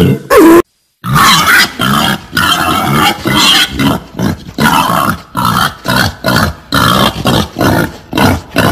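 Female wild boar grunting in a quick, steady series, about two short grunts a second, after a brief break in the sound near the start.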